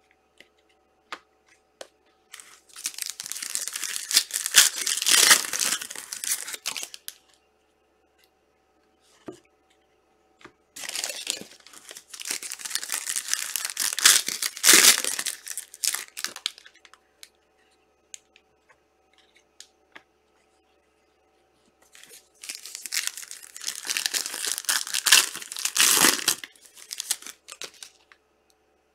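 Plastic wrapping on trading card packaging being torn open and crinkled by hand, in three separate bouts of several seconds each, with small clicks of handling in between.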